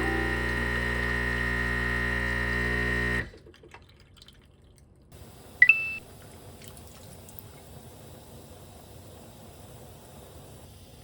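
Background music that cuts off abruptly about three seconds in, then faint hiss. About halfway through comes one short, loud electronic beep, a steady tone that steps up in pitch once.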